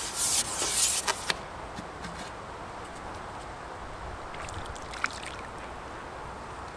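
A short noisy burst with a few sharp peaks in the first second and a half, then steady outdoor background noise. About five seconds in there is one brief small splash at the water's surface as a small fish is lifted on a fishing pole.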